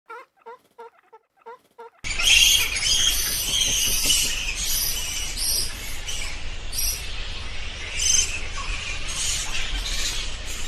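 A fowl gives a quick run of short, evenly spaced calls. About two seconds in, the sound cuts to a loud, dense chorus of high-pitched chirping that pulses on and off, with a low rumble underneath.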